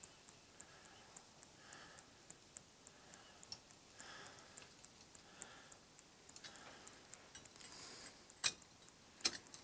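Molten aluminum poured from a crucible into a steel ingot mold, a nearly silent pour: only a faint, regular ticking runs under it, with two sharp metallic clicks near the end.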